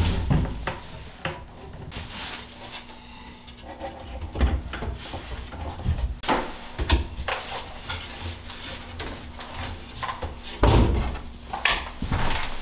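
Wooden cabinet doors being hung and tried: scattered knocks and clacks of the wood doors against the cabinet frame, with a louder thud as a door is swung shut near the end.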